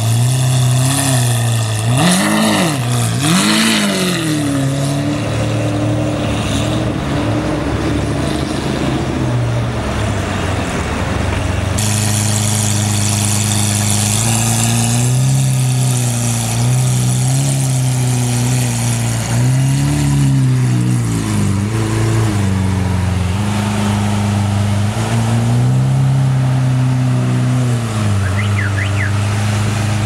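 Lamborghini Aventador's V12 with an IPE Innotech exhaust idling and being revved: loud, short blips that rise and fall in pitch, a few in quick succession near the start and several more later over a steady idle.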